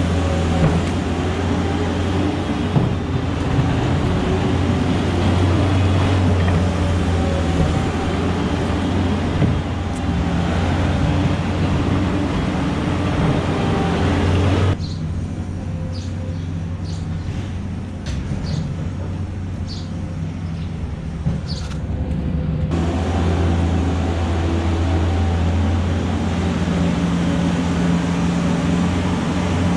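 An engine of farm machinery running steadily with a low, even hum. For about eight seconds in the middle the hissy upper part of the sound drops out, leaving the hum and a few short high squeaks, before it returns.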